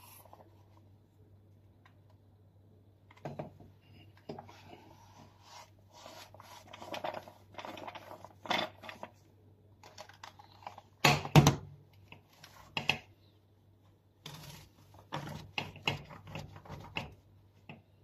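A paper towel rustles and rubs inside a Dyson vacuum cleaner's plastic floor head as it is wiped clean, mixed with the clicks and knocks of the head being handled. Two sharp clicks a little past the middle are the loudest.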